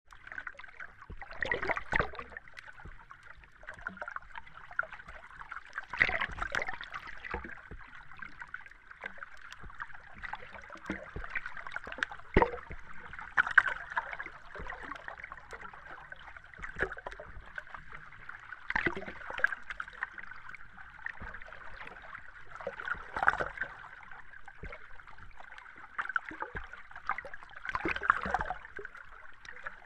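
Underwater ambience heard from beneath the surface: a steady watery hiss with irregular bursts of bubbles every few seconds.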